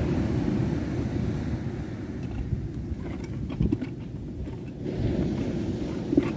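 Wind buffeting the microphone, a steady low rumble, with a few faint knocks around the middle and a sharper knock near the end.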